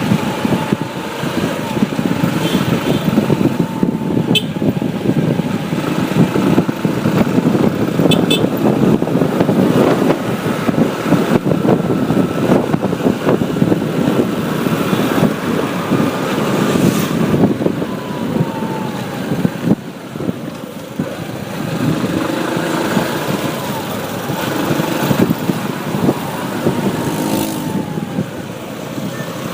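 Riding a motorbike in road traffic: a steady, dense rush of engine and road noise, with a faint wavering tone near 1 kHz and a few short high clicks in the first ten seconds.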